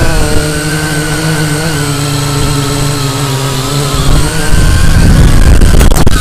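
FPV drone's electric motors and propellers whining loudly in fast, low flight, the pitch drifting with throttle and growing louder about four seconds in. Near the end it crashes into a gravel road with a few sharp knocks.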